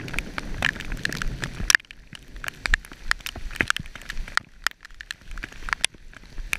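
Heavy rain in a thunderstorm, with raindrops striking the camera in many irregular sharp ticks. A low rushing noise under the ticks stops abruptly about two seconds in.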